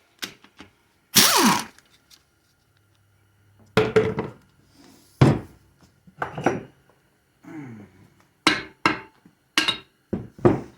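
Hammer blows knocking the tail housing off a 4L60E automatic transmission: about ten sharp, irregularly spaced knocks, a couple of them ringing briefly.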